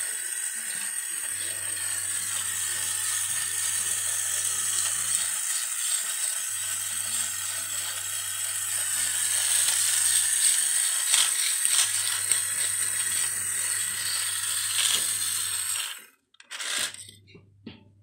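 Small battery motor of a pink toy appliance running with a steady high whine and hiss, then switching off suddenly about sixteen seconds in. A few light plastic clicks come near the end.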